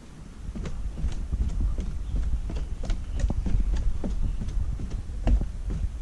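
Footsteps going down wooden stairs: hard knocks on the boards about twice a second, over a steady low rumble.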